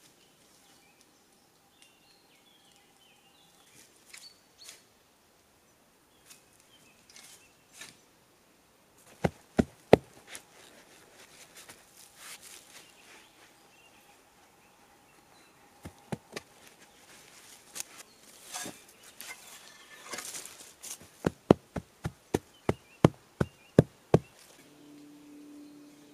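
Dull knocks of loose soil being tamped down around the base of an upright log post: three about ten seconds in, then a quick run of about ten at roughly three or four a second near the end. An insect buzzes faintly and steadily at times.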